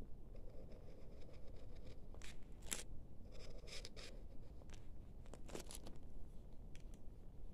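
Felt-tip highlighter rubbing across paper in two short strokes, with a few sharp clicks in between and near the end.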